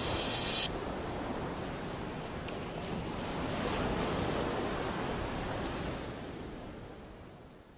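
A short burst of music cuts off just under a second in, leaving a steady rushing noise that swells around the middle and then fades out near the end.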